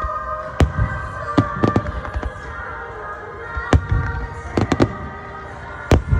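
Fireworks shells bursting in the sky, about ten sharp bangs, some in quick runs of two or three. Music with long held tones plays underneath.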